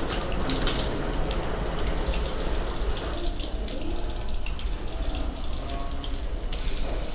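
Steady rushing noise like running water.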